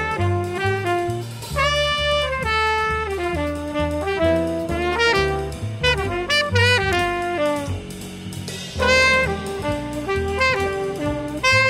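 Jazz music with a saxophone playing the melody over bass and drums.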